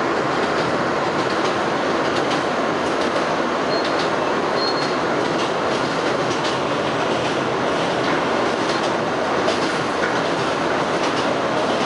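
Steady running noise of an R160A New York City Subway car as heard from inside it, with wheels clicking irregularly over the rails. There are two brief high squeals about four and five seconds in.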